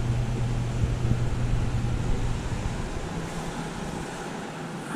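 Steady low mechanical hum over an even hiss, the hum fading out about three seconds in.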